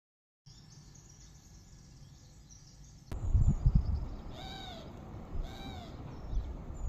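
Faint high bird twittering. After a cut about three seconds in, wind rumbles on the microphone and an animal gives two short, arching calls about a second apart.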